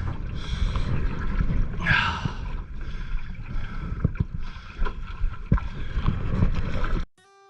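Canoe being paddled into the wind: wind buffeting the microphone with water noise and scattered knocks and splashes of the paddles, and a brief grunt about two seconds in. It cuts off suddenly near the end, and acoustic guitar music begins.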